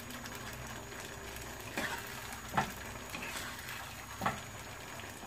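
Thick rava kesari being stirred and turned with a spatula in a small pan over a gas flame: a steady soft sizzle with three or four short scrapes of the spatula against the pan. The pudding comes away from the pan without sticking, the sign that it is done.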